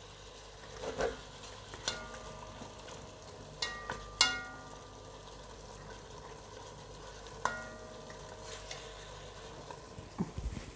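Chunks of lamb sizzling gently in butter in a metal kazan pot as they are seared to seal in their juices. A plastic slotted spatula turns them, knocking against the pot about four times, each knock leaving a short metallic ring.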